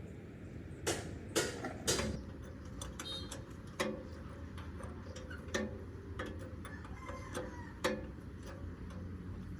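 Irregular sharp taps and clicks, loudest about a second in and again near the end, over a steady low hum: light work with tools on a radiator.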